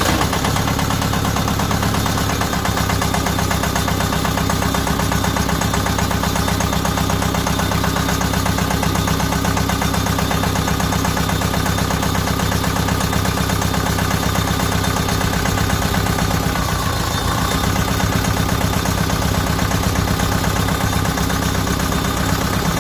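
Deutz D2011 L04 four-cylinder diesel engine running steadily with a misfire: it is still shaking after a valve clearance adjustment, with cylinders 2 and 3 not firing properly, which points to their injectors.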